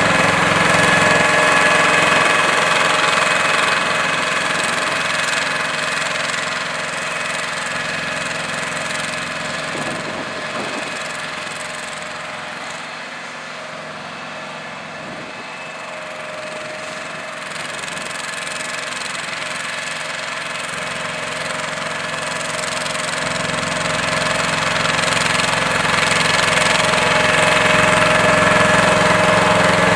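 Bitelli BB650 asphalt paver's diesel engine running steadily as it paves, with steady high whines over the engine noise. It grows quieter through the middle and louder again toward the end.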